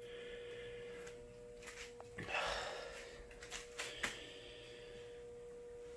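Battery charger humming faintly in a steady tone while charging a lawn tractor battery on its 12-volt, 6-amp setting, with a few light clicks and a short rustle about two seconds in.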